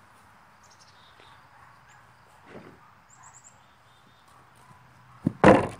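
A few faint bird chirps over quiet outdoor background, then near the end a short knock and a loud thump on a wooden picnic table, which fits hands slapping down on the tabletop for a Kong vault and jolting the camera that stands on it.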